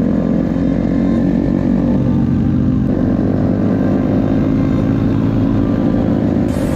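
Honda Chaly small four-stroke single-cylinder motorcycle engine running under way, its pitch rising as it accelerates. About three seconds in the pitch drops suddenly, as at a gear change, then climbs again.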